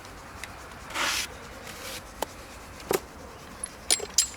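A tool scraping roughly on the wall, once briefly about a second in and more faintly after, then a few sharp metallic clicks and clinks near the end, one of them ringing.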